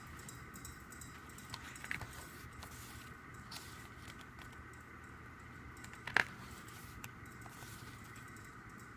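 Faint handling of a photo book and album packaging: soft taps and paper rustles, with one sharper tap about six seconds in, over a steady faint background hum.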